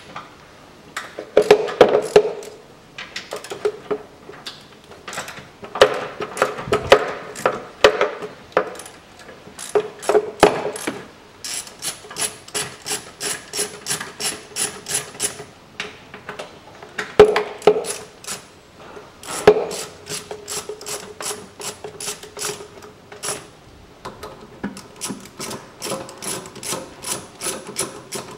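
Hand ratchet clicking in runs of rapid, even clicks as bolts inside a plastic car air filter housing are backed out. The runs come between knocks and scrapes of tool and plastic.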